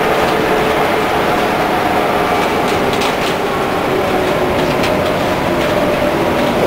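Leyland Lynx single-deck bus's diesel engine running under way, heard inside the cab as a steady drone mixed with road noise, with a few short clicks and rattles.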